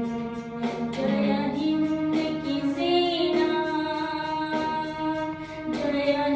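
A song with a high singing voice, sung over an instrumental accompaniment with a steady beat, holding long notes.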